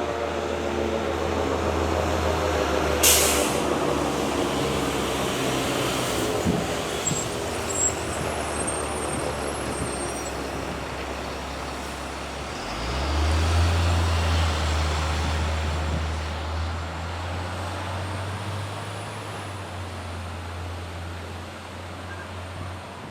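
Decot Red Arrow Model 12 tornado siren winding down at the end of its Alert test, its tone slowly falling in pitch and fading over the first few seconds. A short sharp hiss about three seconds in. A low engine rumble starts about twelve seconds in and slowly dies away.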